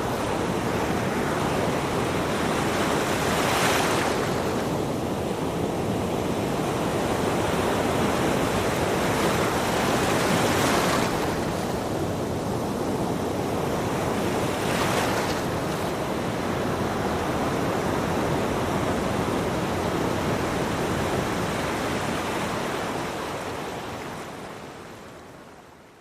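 Ocean surf: waves washing onto a beach in a steady rush, with three louder breakers a few seconds apart. The sound fades out near the end.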